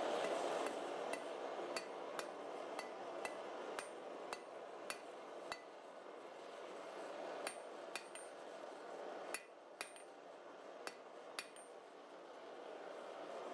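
Blacksmith's hand hammer striking a red-hot steel bar on an anvil as it is tapered for a hook, the blows coming about two a second, each with a short metallic ring. After a pause about halfway, a few more blows come in pairs. A steady rushing noise runs underneath.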